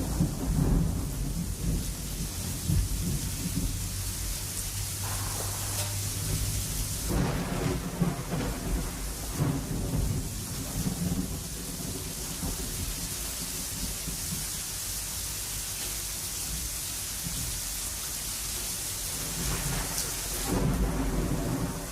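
Thunderstorm: thunder rumbling over a steady hiss of rain, with louder rolls at the start and again near the end.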